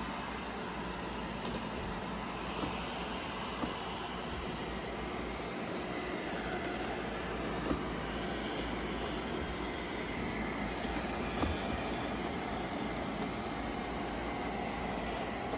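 Bagotte BG700 robot vacuum running: a steady whir from its suction fan and brushes, with a few faint knocks scattered through it.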